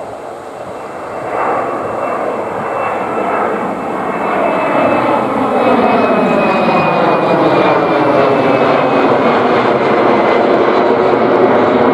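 Twin turbofan engines of an Embraer E-Jet airliner at climb power as it climbs out overhead after takeoff. The jet noise grows steadily louder, with a thin high fan whine and a sweeping, whooshing shimmer as the aircraft passes over.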